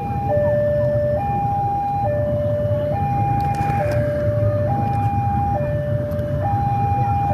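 Railway level-crossing warning alarm sounding a two-tone hi-lo signal, swapping between the higher and lower tone about once a second, over a steady low rumble. It warns that a train is approaching the crossing.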